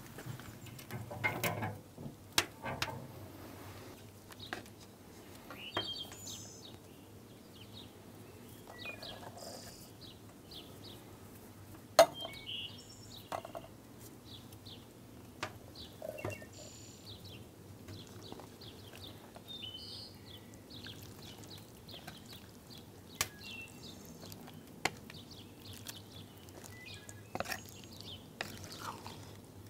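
Faint bird chirps and scattered sharp clicks over a quiet background, the loudest click about twelve seconds in.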